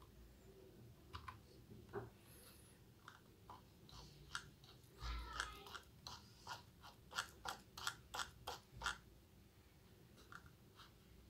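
Faint, irregular ticking of a computer mouse's scroll wheel being turned in short spurts, busiest about two thirds of the way in and stopping near the end.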